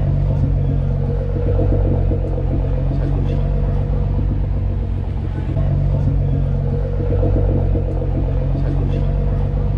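Car engine running with a deep, steady rumble.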